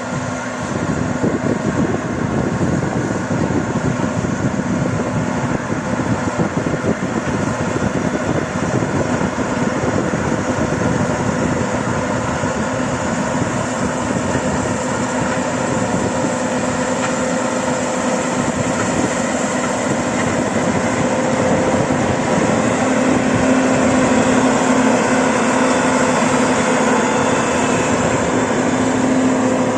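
Combine harvester running steadily at work in rapeseed, an engine hum over the rush of the threshing and cutting gear, growing somewhat louder about two-thirds of the way through.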